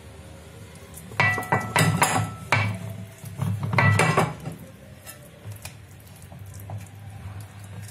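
A heavy metal pan clattering and ringing as semolina harcha dough is pressed and spread in it with a silicone spatula and hand: two bursts of knocks and scrapes, then a few faint taps.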